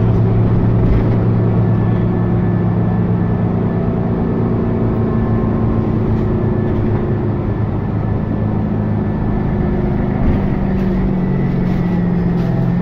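Cabin sound of a Mercedes-Benz O530G Citaro C2 articulated city bus under way: a steady low drone from the diesel engine and driveline with road rumble. The pitch shifts slightly in the second half.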